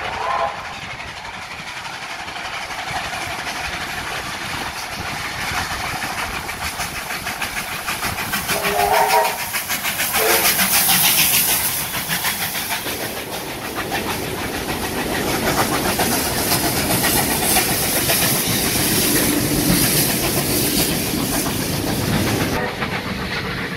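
Steam locomotives working hard past at close range: fast exhaust chuffs and hissing steam, with a steam whistle sounding at the start and again about nine seconds in, after which the hiss swells loudest as the engines pass.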